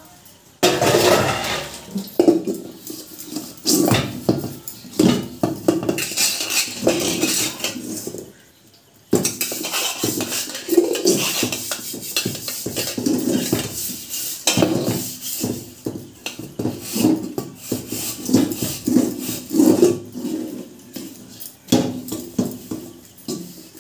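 Stainless steel plates and bowls clattering and scraping against each other and the metal sink as they are washed by hand, with a short pause about eight seconds in.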